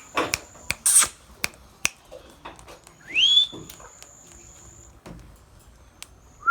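Pet ring-necked parakeet calling: two harsh squawks in the first second, a few sharp clicks, and a rising whistled call about three seconds in.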